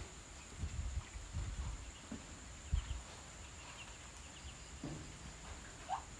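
Faint night ambience: a steady high-pitched insect drone, a few soft low thumps, and a short rising squeak near the end.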